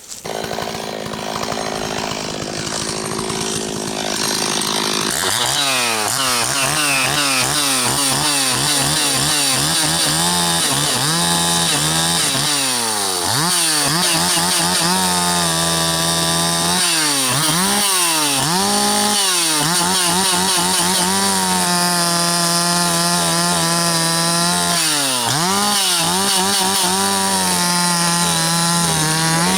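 Stihl 026 two-stroke chainsaw idling for a few seconds while it warms up, then revved again and again: it climbs to high speed, holds there for a second or several, and drops back toward idle.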